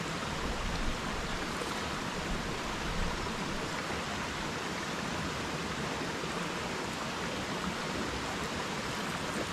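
Steady rush of creek water running over rocks, an even hiss with no breaks or distinct events.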